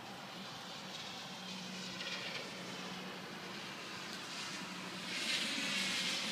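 A car approaching on a wet road, its tyre hiss growing louder toward the end, over the patter of rain and a steady low hum.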